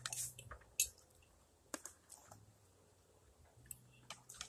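Faint, scattered clicks and wet smacks of people eating and chewing, about half a dozen.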